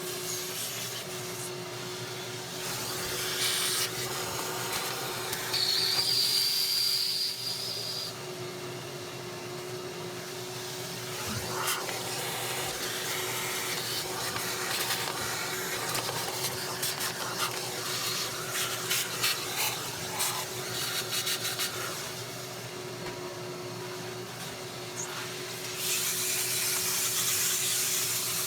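Vacuum cleaner running steadily with a motor hum and rushing air as it sucks debris out of the engine, with a brief high whistle about five seconds in and bursts of clicking and rattling as bits are drawn up the hose.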